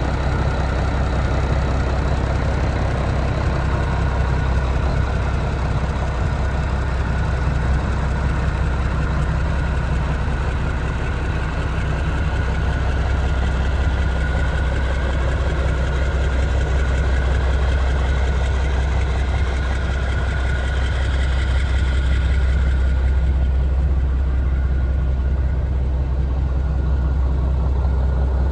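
Diesel engine of a 1996 Mack CH600 truck idling steadily, a low, even rumble.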